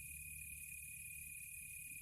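Countryside ambience: a steady, unbroken insect trill and high chirring over a faint low rumble.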